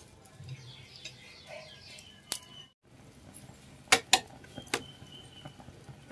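Sharp clicks and clinks of okra on a metal skewer being turned over a charcoal brazier, three close together about four seconds in.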